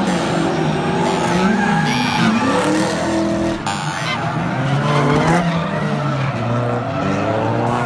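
Drift cars' engines revving hard, the pitch rising and falling as they slide sideways through the corners, over the skid of the tyres. More than one engine is heard at once.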